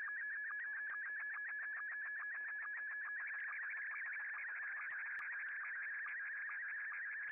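Slow-scan television (SSTV) picture signal coming in over amateur radio. It is a steady warbling tone with regular sync ticks about five a second, the picture lines being sent. About three seconds in the tone spreads and grows busier as picture content starts.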